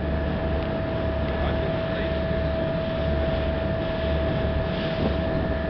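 Car ferry under way: steady engine drone with a constant high whine over a low rumble that swells and fades unevenly.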